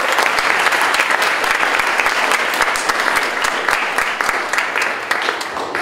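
Audience applauding, a dense patter of many hands clapping that fades down near the end.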